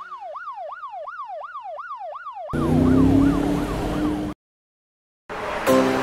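Cartoon police siren sound effect wailing rapidly up and down, about two and a half sweeps a second. About two and a half seconds in, a louder noisy rumble joins it. The sound then cuts out completely for about a second before returning near the end.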